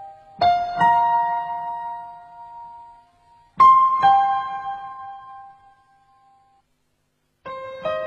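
Slow piano music: pairs of notes struck a few seconds apart, each left to ring and fade away. A short silence comes near the end, before the next notes start.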